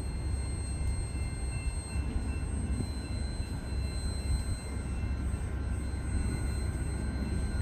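Union Pacific manifest freight train's covered hopper cars rolling past: a steady low rumble of steel wheels on rail, with faint steady high-pitched tones over it.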